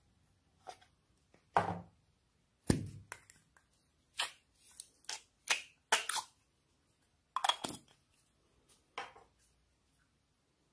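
Hands handling slime and its plastic containers: about a dozen separate short squishes, pops and clicks with quiet gaps between them.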